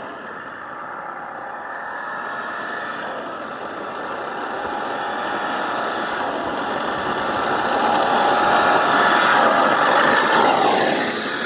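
Battery-powered remote-control Volkswagen Beetle model running on the road, its electric drive motor whining over tyre noise. The whine rises and falls with speed, grows louder toward the end, then drops sharply in pitch shortly before the end.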